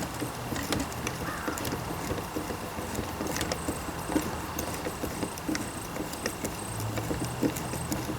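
Irregular light metallic clicks and taps of bolts and small steel parts being handled and fitted by hand, over a steady low hum.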